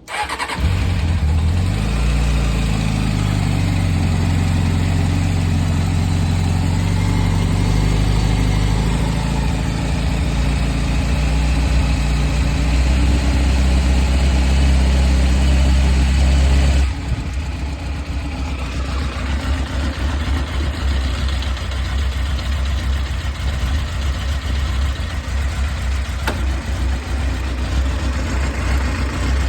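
Honda CBR600F3 inline-four engine idling in neutral with a whirring noise that the owner is unsure is normal. The sound comes in suddenly at the start, then runs steadily. About 17 seconds in it drops a little in level and turns rougher.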